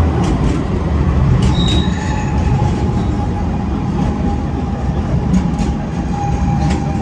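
Alstom Citadis 304 tram running on rails: a loud low rumble with a steady high tone joining about two seconds in, and several sharp clicks from the wheels on the track.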